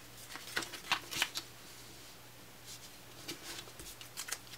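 Faint rustling and light taps of cardstock being handled. There is a cluster about a second in and a few more near the end.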